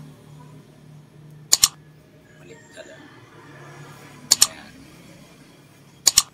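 Three sharp double mouse clicks, a sound effect on the like-and-subscribe animation, about two to three seconds apart, over a low steady hum.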